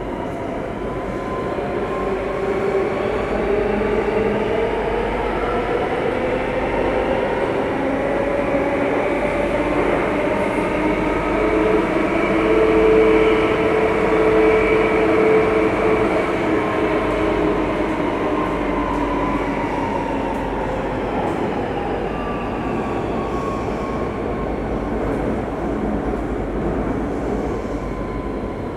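Singapore MRT train heard from inside the passenger car while running: a steady rumble with several motor whine tones that rise in pitch for about the first half, peak around the middle where it is loudest, then fall as the train slows.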